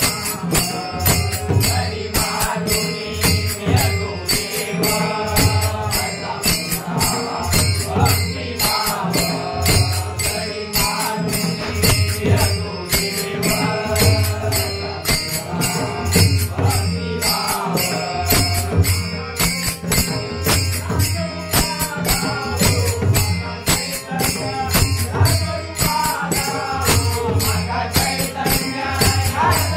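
Warkari devotional bhajan: voices singing a chant-like melody over steady deep drum strokes and a fast, continuous clash of small hand cymbals.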